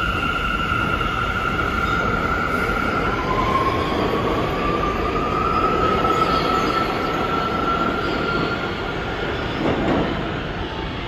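New York City subway train running through the station: a steady rumble with a high steady tone that, about three seconds in, gives way to a tone rising slowly in pitch, which fades out near the end.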